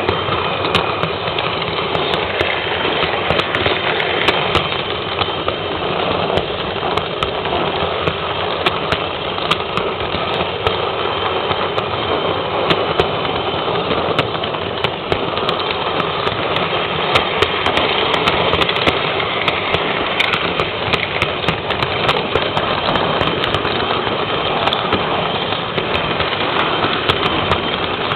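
Model train running along its track, heard from a camera riding on board: a steady whirring rattle of motor and wheels, with frequent irregular clicks.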